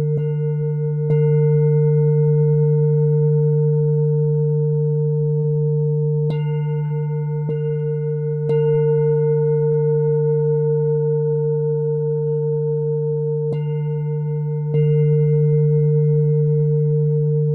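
Antique singing bowl tuned to D, struck repeatedly, every few seconds and sometimes two or three strikes in quick succession, each strike renewing a long ringing hum. The low fundamental is held under a stronger, slowly wavering overtone, with fainter higher overtones above.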